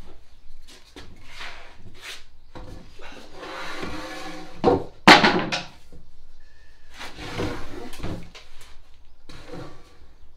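Lengths of timber being handled, scraped and knocked down on a boarded floor: a string of wooden clunks and scrapes, the loudest a sharp knock about five seconds in.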